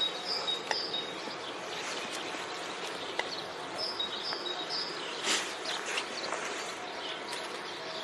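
Outdoor nature ambience: small birds chirping in short high phrases, twice, over a steady background hiss.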